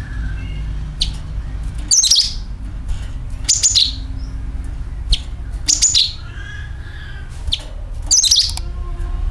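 Cucak kinoi bird calling: loud, sharp, high chirps every second or so, some coming in quick clusters, as used for a lure (pancingan) recording. A steady low hum runs underneath.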